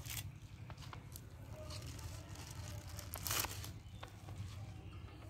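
Fresh spinach being picked over by hand: stems snapped and leaves torn and rustled. A few short, sharp snaps come through, the loudest about three seconds in.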